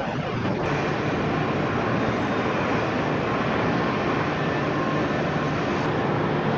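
Steady mechanical rumble and hiss of a working port, from truck engines and ship's deck cranes, with a few faint held engine tones.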